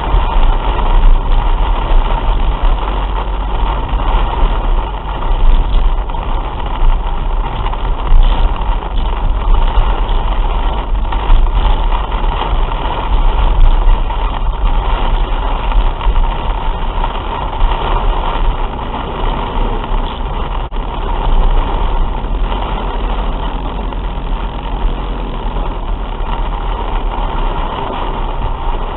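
Inside a car driving through torrential rain: heavy rain beating on the roof and windscreen mixed with the car's engine and road noise, a dense, steady rush with a strong low rumble.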